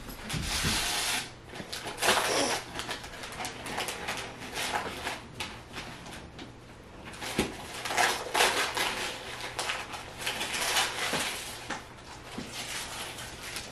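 Wrapping paper crinkling and tearing in repeated bursts as a gift box is unwrapped by hand.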